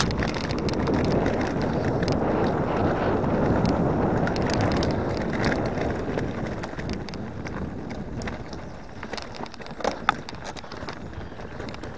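Specialized Enduro mountain bike riding down a rough forest trail: tyres rolling on dirt and gravel, with wind on the microphone and rattles and knocks from the bike over bumps. The noise is loudest in the first half and eases after about six seconds, with a couple of sharp knocks near ten seconds in.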